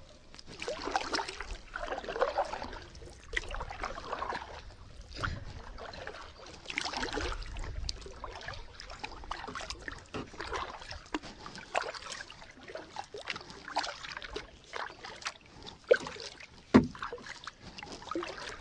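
Kayak paddle strokes: a double-bladed paddle dipping and pulling through calm water, each stroke a swish with dripping water. There are two sharp knocks near the end.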